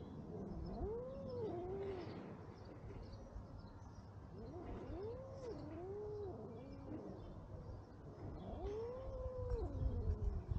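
A domestic cat meowing three times, each a long drawn-out call that rises and falls in pitch.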